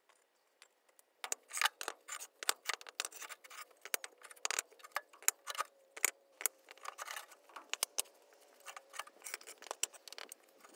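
Concrete pavers being laid by hand: a quick, irregular run of sharp clicks, knocks and scrapes as the pieces are set and shifted against one another, starting about a second in.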